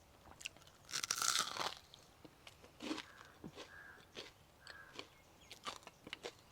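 Crunching and chewing of crisp fried unniyappam (a rice-and-jaggery fritter) close to the microphone. There is a loud crunchy bite about a second in, then smaller crunches and chews.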